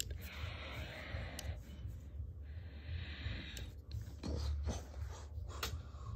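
Breathy hissing noises, made twice and each lasting about a second, voicing a toy T-rex. From about four seconds in they give way to light plastic clicks and knocks as the toy figure is handled.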